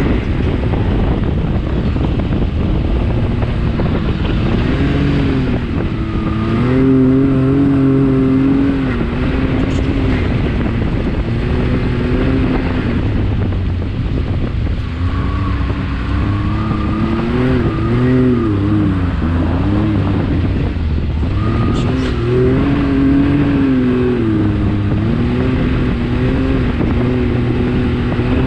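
Can-Am Maverick X3 XRC Turbo's three-cylinder turbocharged engine running under load while driving over sand dunes, heard on board; the revs rise and fall several times as the throttle is worked.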